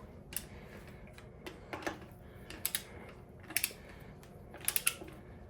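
Short sharp metallic clicks of a ratcheting torque wrench working a Honda D16 connecting-rod bolt up to 23 ft-lbs: single and doubled clicks about a second apart.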